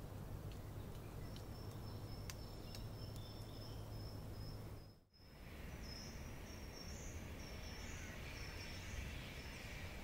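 Forest ambience: a faint high steady trill with a few light ticks over a low hiss, then a run of high repeated chirps. The sound drops out briefly about halfway through.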